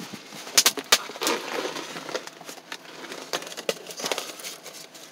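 Rustling, crinkling and sharp clicks of hands rummaging through debris inside a derelict car's interior; the two loudest clicks come just under a second in.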